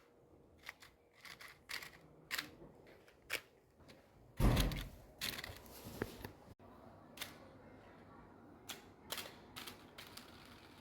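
Handling clicks of a hand-made aluminium-foil toy revolver: a dozen or so sharp, irregular clicks, with one louder thump about four and a half seconds in.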